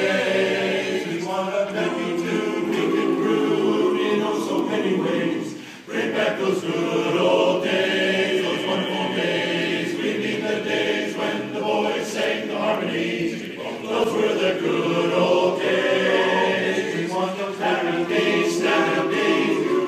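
Barbershop chorus singing a cappella in four-part harmony, with held, ringing chords and a short break about six seconds in.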